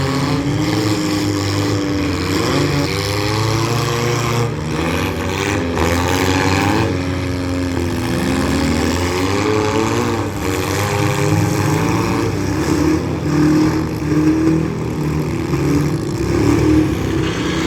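Several demolition derby street stock cars' engines running and revving at once, their pitches rising and falling as the drivers accelerate and back off.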